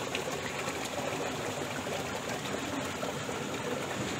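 Rocky river water flowing over and between boulders, a steady rushing.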